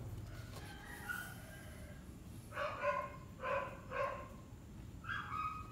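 A dog barking: several short, high-pitched barks, most of them in the second half.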